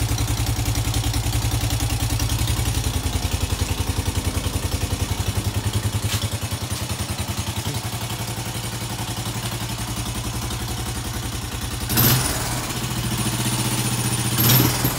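2005 Honda Foreman 500 ES ATV's single-cylinder engine idling steadily with an even, pulsing beat. A single clatter about twelve seconds in.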